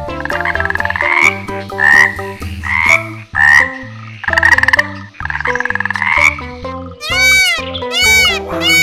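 Frog croaking: a run of pulsed croaks, some short and some about a second long, over steady background music. About seven seconds in, the croaks give way to a quick series of short calls that rise and fall in pitch.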